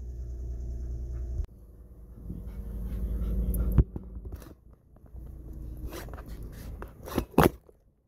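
Golden retriever panting inside a car, over a low hum that cuts off about one and a half seconds in and comes back. Several sharp knocks and rustles, the loudest near the four-second mark and about seven seconds in.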